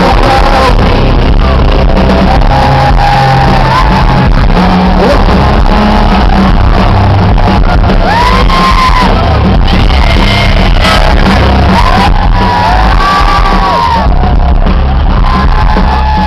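Live rock band playing loud, with shouted vocals, on an overloaded audience recording.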